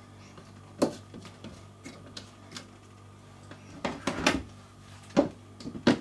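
Scattered hard plastic knocks and clicks as a mini food processor is handled: a spatula tapping against the plastic bowl, then the motor top being lifted and fitted onto the bowl, clattering several times near the end. A steady low hum runs underneath.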